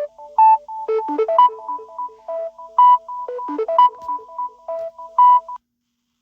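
Samsung Galaxy A50 ringtone playing: a synthesised melody of short, bright notes that stops about five and a half seconds in.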